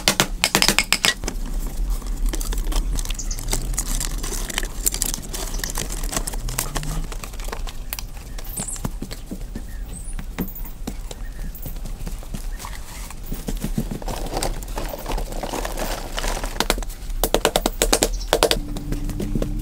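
Irregular knocks and clicks of cut bamboo pieces being handled and fitted together, with bursts of rapid clicking at the start and again near the end.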